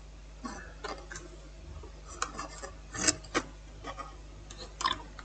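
Faint, scattered small clicks and rubs of hands working on a laptop motherboard, as the battery connector is being unplugged, over a steady low hum.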